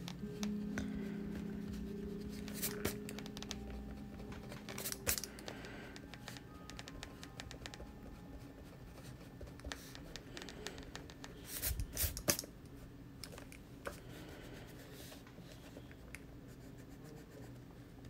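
Block eraser rubbing across sketchbook paper in scratchy strokes, with a few sharp knocks, loudest a little past the middle.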